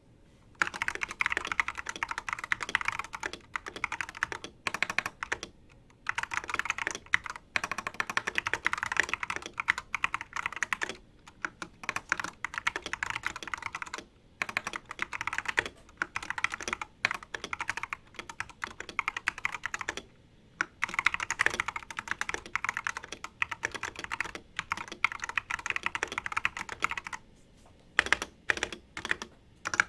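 Typing on an Everglide SK87 mechanical keyboard with Tourmaline Blue tactile switches, sitting on a bare desk without a deskmat: fast runs of keystrokes broken by short pauses, thinning to separate key presses near the end.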